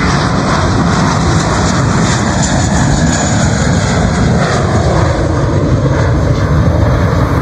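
JetBlue Airbus A320 climbing out just after takeoff, its twin jet engines at takeoff thrust giving a loud, steady rumble.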